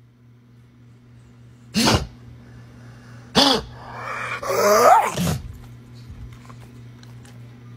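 A large dog vocalising: two short woofs, then a longer drawn-out call that rises and falls in pitch. A faint steady low hum runs underneath.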